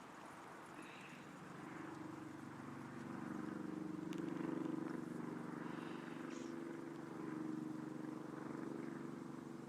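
A steady low engine hum that grows louder about three seconds in, with a couple of faint short high chirps.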